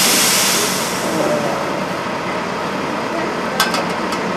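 Garbage truck working: a loud hiss of released air that fades out within the first second, over a steady engine hum, then a quick run of sharp metal clanks about three and a half seconds in.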